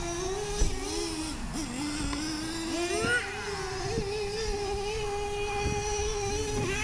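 Small two-stroke nitro engines of Traxxas T-Maxx and Revo RC monster trucks running with a high whine, revving up and down, then holding a steadier, higher pitch from about three seconds in. A few short knocks are heard, near the first second and again around three seconds.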